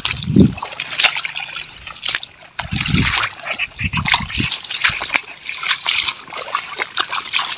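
Footsteps in sandals splashing and squelching through shallow swamp water and mud, with a low thud at each step about once a second. Tall grass swishes against the legs throughout.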